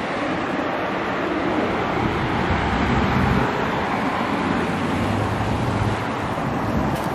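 Road traffic: cars passing on the road, a steady rush of tyres and engines that swells around three seconds in.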